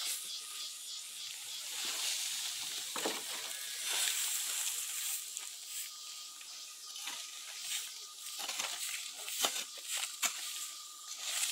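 Hoe blade scraping over bare dirt and dragging cut weeds together into a pile, in irregular scrapes and rustles over a steady high hiss.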